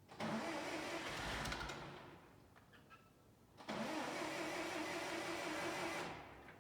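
Case 1530 Uni-Loader skid steer engine being cranked twice on the starter, each try about two seconds long and winding down without the engine staying running.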